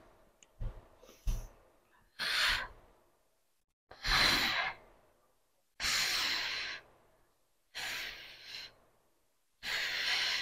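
A woman breathing hard through a set of weighted glute bridges: five forceful breaths about two seconds apart, one with each hip lift, after a couple of soft knocks near the start.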